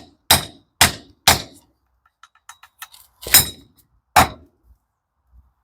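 Sharp metallic knocks on gearbox parts: five hard strikes with a few light clicks between them.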